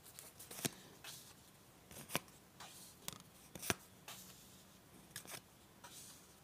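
Lenormand cards being dealt one by one and laid onto a cloth-covered table: soft slides and about six sharp card snaps, the loudest a little past the middle.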